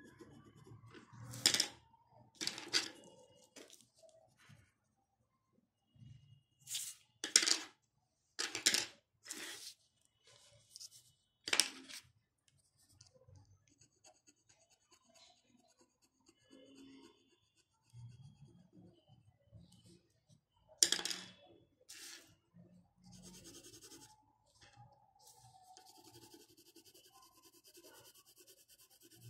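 Pencil drawing on paper: a string of short, sharp scratchy strokes, some in quick pairs, then a faint steady scratching of pencil shading near the end.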